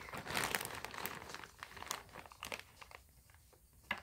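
A clear plastic zip bag crinkling and rustling as a small toy phone is pushed under it, with a few light clicks. The rustling dies away after about two seconds.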